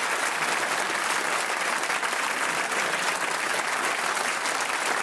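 A studio audience applauding: many hands clapping in an even, steady patter.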